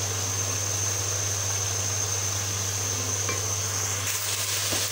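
Steady hiss of chicken and potato curry simmering in a steel pot on a gas flame, under a constant low hum. About four seconds in the sizzling grows louder, and the wooden spoon gives a light knock against the pot.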